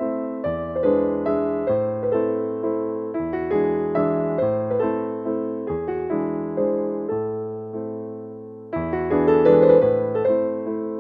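Background piano music: slow, soft chords that ring and fade. One phrase dies away before a new one begins about nine seconds in.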